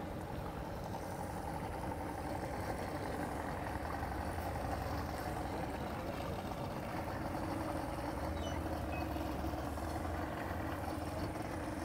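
Outboard motors idling at low speed, a steady low engine hum with no change in pitch.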